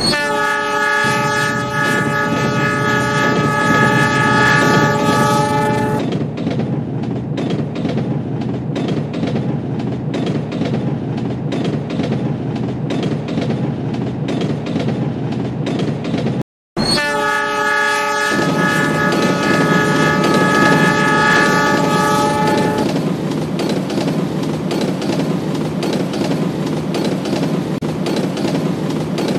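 Train air horn sounding a long multi-note chord for about six seconds, then the steady rumble and clickety-clack of railway wagons rolling past. After a brief cut to silence partway through, the horn sounds again for about five seconds and the wagon rumble carries on.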